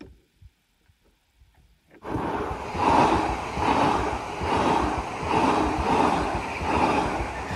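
Nearly quiet at first; about two seconds in, Norrtåg electric passenger trains rush past close by at a level crossing. The loud rushing noise swells and fades in an even beat, about three times every two seconds.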